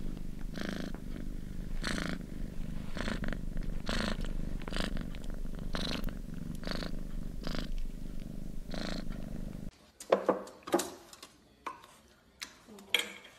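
Cat purring steadily while being stroked, the rumble pulsing evenly with its breathing. About ten seconds in the purring cuts off and a few short clinks and knocks follow, from a puppy scrabbling in a steel food bowl.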